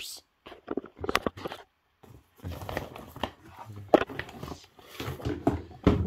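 Handling noise: irregular knocks and rustling, with crinkling of plastic bags, as a phone is fumbled close to the microphone.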